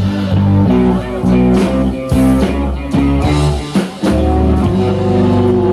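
Live rock band playing, with acoustic and electric guitars over drums. The music drops out briefly just before four seconds in and comes back on a held chord.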